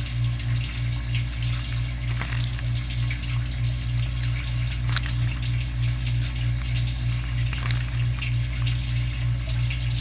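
Dishwasher running its wash cycle, heard from inside the tub through a waterproof camera case: water spraying onto the racks over a low hum that pulses about three times a second, with scattered ticks of droplets.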